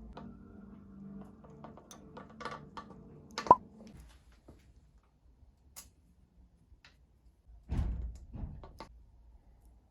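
Bicycle headset parts and tools being handled in a workshop: scattered small clicks, one sharp click about three and a half seconds in, and two low thunks near the end.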